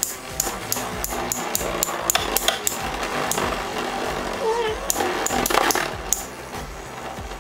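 Two metal Infinity Nado 3 battle tops spinning in a plastic stadium, whirring with frequent irregular sharp clacks as they knock against each other.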